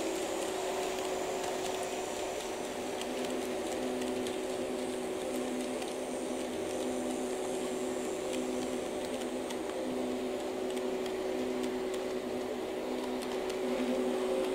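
HO-gauge model train, a Tomix EF64 1000 locomotive hauling 115-series cars, running on the track: a steady mechanical whir and hum with light clicks.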